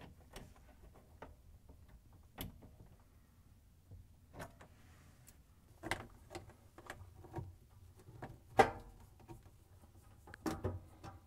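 Scattered light clicks and taps of a wrench and nut driver working on hose fittings and a hose clamp, with a sharper knock about two-thirds of the way through.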